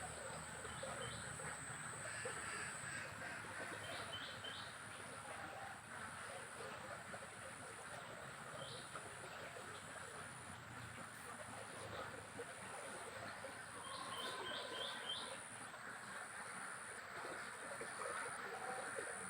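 Faint riverside ambience: a steady rush of water, a high buzz pulsing on and off, and short bird chirps, some in quick groups of three or four about four and fourteen seconds in.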